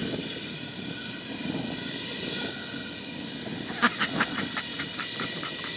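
Handheld GrillBlazer propane torch firing a steady hissing flame against a refrigerator door. About four seconds in, a man's voice breaks in with a quick run of short sounds over the hiss.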